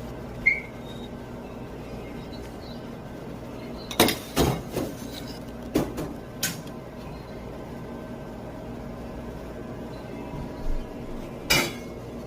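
Kitchen utensils clinking and knocking against a pot and dishes: a few sharp knocks, bunched together about four seconds in and again near the end, over a steady background hum.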